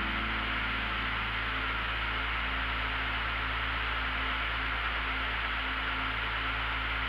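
Steady cabin noise of a small plane in cruising flight: an even hiss of engine and airflow over a constant low hum, with faint music notes underneath.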